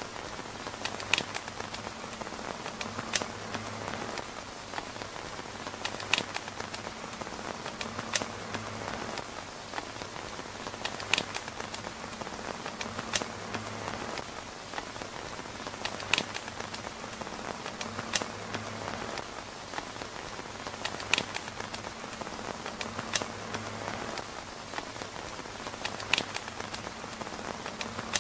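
Steady rain pattering on a tent's fabric roof, with a sharp pop every two to three seconds.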